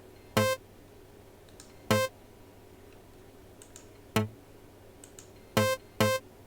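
A synth bass sample being triggered as short single notes, five times at uneven intervals, while it is tuned to key. Faint mouse or key clicks sound in the gaps.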